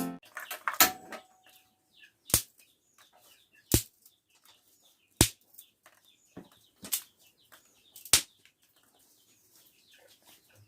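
A series of sharp knocks, about one every second or so, with faint chirps in between.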